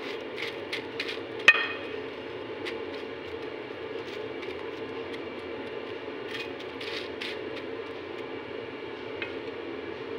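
A spatula stirring chicken and crisp fried bread pieces in a glass bowl: scattered scrapes and clicks against the glass, with one sharp, ringing clink about a second and a half in and another flurry of scrapes past the middle. A steady background hum runs underneath.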